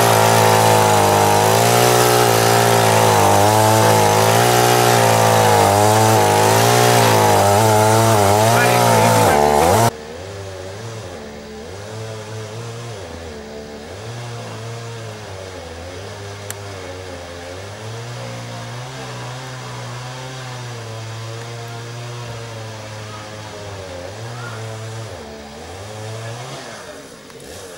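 Two-stroke chainsaw running at full speed, cutting through a fallen tree trunk. About ten seconds in, the sound drops abruptly to a fainter engine whose pitch keeps rising and falling.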